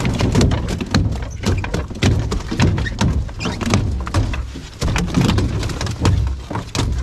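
A large Atlantic halibut thrashing on a fibreglass boat deck, with repeated irregular thuds and slaps of its body against the floor, several a second, mixed with the rustle of waterproof clothing holding it down.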